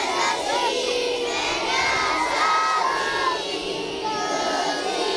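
A crowd of young children shouting and cheering together, many high voices overlapping without a break.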